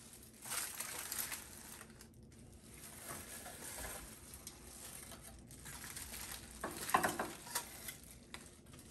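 Faint rustling and crinkling of a plastic food-handling glove and aluminium foil as raw prawns are picked up and placed in an air fryer basket, with a louder cluster of clicks and rustles about seven seconds in.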